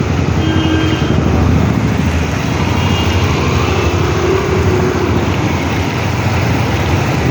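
Steady, loud road-traffic noise: vehicle engines running close by.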